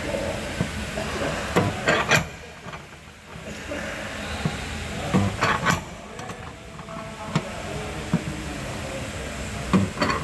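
Sharp metal knocks at irregular intervals, some in quick clusters, as a dented car sill is pulled out with a pull rod clamped to the panel.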